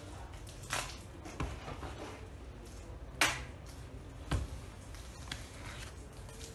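A few short taps and rustles of a small cardboard box being handled and knocked against the bed, the loudest about three seconds in.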